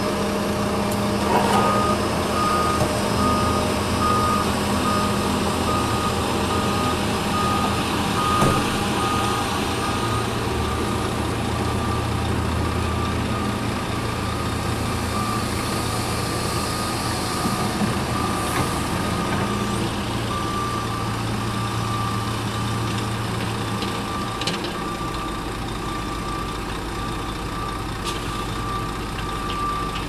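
Reversing alarm on heavy construction machinery giving a steady run of evenly spaced beeps, over the low hum of diesel engines running. The engine note shifts lower about three-quarters of the way through.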